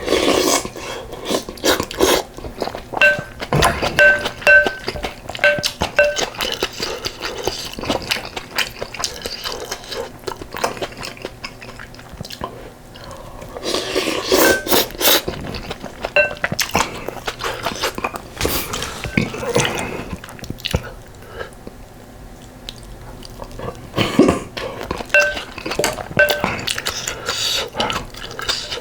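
Close-up eating sounds: a spoon repeatedly clinking against a bowl with short ringing tones, while someone chews and spoons up soup with rice and kimchi.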